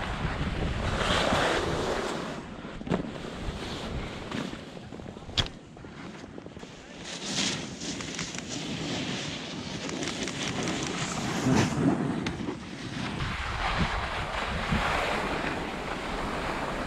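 Skis scraping and hissing over packed snow through a series of turns, swelling and fading every few seconds, with wind buffeting the microphone. A sharp click about five seconds in.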